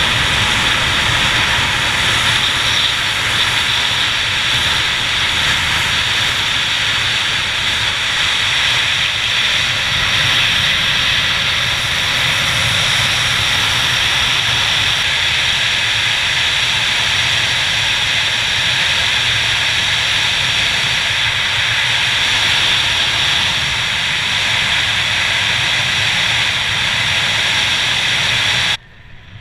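Loud, steady rush of air over the camera microphone during a wingsuit BASE jump in flight, a dense hiss with a low rumble. It cuts off abruptly about a second before the end.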